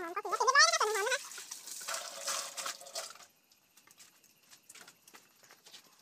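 A dog whines once, a wavering high cry lasting about a second, at the start. Then a kitchen knife chops herbs on a wooden chopping block, first a brief scraping hiss and then faint light taps.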